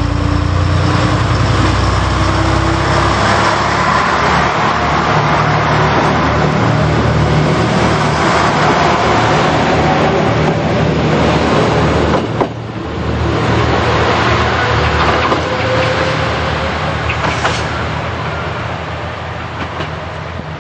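KTR8000 diesel railcar pulling out and passing close by: engines working under power with slowly rising tones over the wheels rumbling on the rails. The sound dips sharply about twelve seconds in, then slowly fades as the train draws away.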